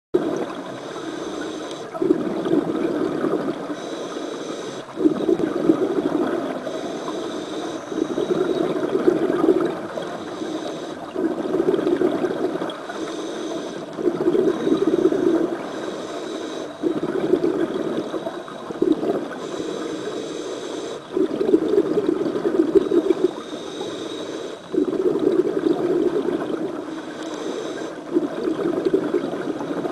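Scuba diver breathing through a regulator underwater: a hiss on each inhale, then a rush of exhaled bubbles, repeating about every three seconds.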